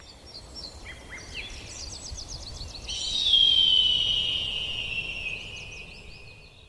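Forest ambience of birds chirping over a low rumble. About three seconds in, a long whistle slides slowly down in pitch and is the loudest sound before it fades.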